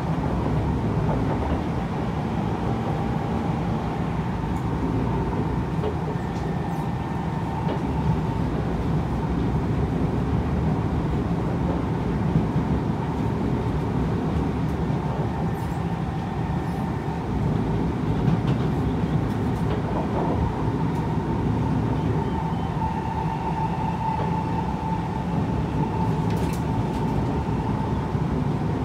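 Interior running noise of a Kawasaki Heavy Industries C151 metro train under way: a steady rumble of wheels on track with a faint steady whine, which grows a little stronger about three-quarters of the way through.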